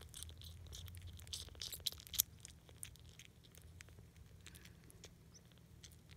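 Newborn Sphynx kittens suckling at their mother's teats: faint, quick wet smacking and clicking, busiest in the first two seconds, with one sharper click about two seconds in.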